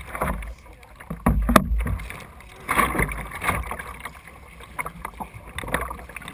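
Kayak paddle strokes splashing and dripping in the water in an irregular rhythm, over a low rumble of wind on the microphone.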